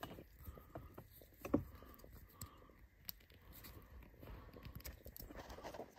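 Faint clicks and rustling of plastic wiring connectors and a wiring harness being handled, with one sharper click about one and a half seconds in.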